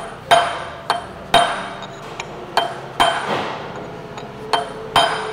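Hammer blows on a steel chisel driving a bearing lock nut tight on a pump shaft, compressing the bearings' inner races. About eight sharp metal-on-metal strikes, each ringing briefly, in a loose rhythm with a pause of about a second and a half just after the middle.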